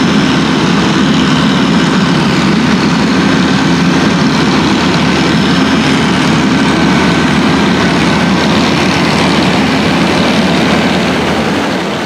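Caterpillar Challenger rubber-tracked tractor's diesel engine running steadily and loudly under load while pulling a plough, with a thin steady high whine above the engine note. The sound fades out near the end.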